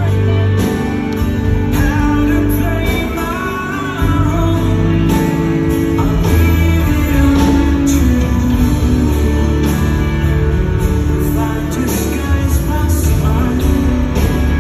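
Live soft-rock band music over a PA, with acoustic guitar, bass, a steady beat and singing.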